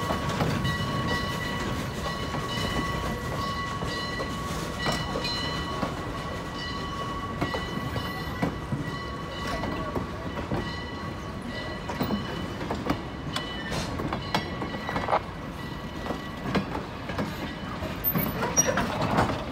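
Steam-hauled train rolling slowly past: a low rumble with scattered clanks and knocks from the wheels and cars. A steady high-pitched whine carries through the first half, and the knocking grows louder and busier near the end.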